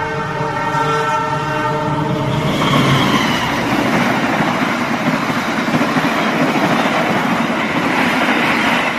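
An Indonesian executive-class passenger train sounding a multi-tone horn chord that cuts off about two and a half seconds in. It is followed by the loud, steady rushing rumble of the train running past.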